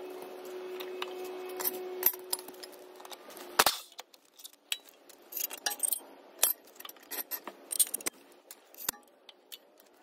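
Metal clinks and taps as a mower blade, its bolt and washers and a wrench are handled under a zero-turn mower deck. A steady low hum stops about three and a half seconds in, after which the clinks come one by one, with quiet between them.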